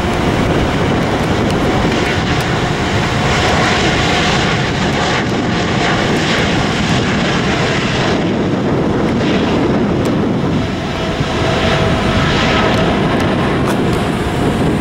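Japan Airlines Boeing 787's twin jet engines at takeoff thrust during the takeoff roll: loud, steady engine noise with a steady tone running through it.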